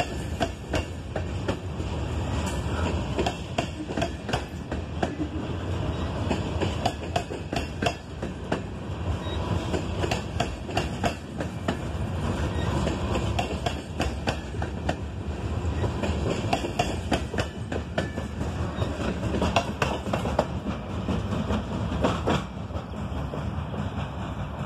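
Freight train of covered hopper cars rolling past close by: steel wheels clacking over rail joints, with a steady rumble and frequent sharp clicks.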